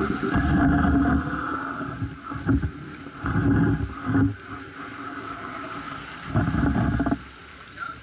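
Icebreaking research ship's steel hull grinding and crunching through thick pack ice, heard close at the waterline: irregular heavy low surges over a steady hum, easing off about seven seconds in.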